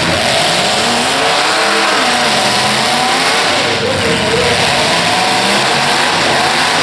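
Several demolition derby car engines revving, their pitch rising and falling over a dense, loud din.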